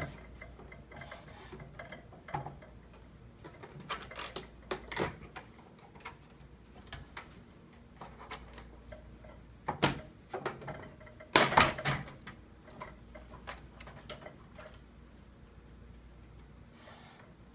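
Irregular plastic clicks and knocks as the snap-in tabs holding the Radiant P1530 register's monitor housing are pried loose and the top is lifted off, with the loudest cluster of knocks a little past the middle.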